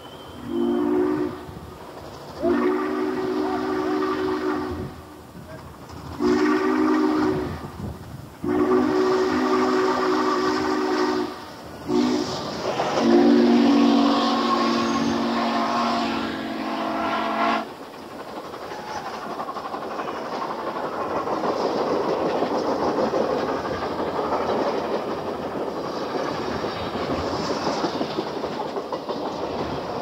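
Steam locomotive's chime whistle blowing about six blasts, short and long, with several notes sounding together. After that a steam-hauled passenger train runs past with a steady rumble and clatter of wheels on rail that swells and then fades.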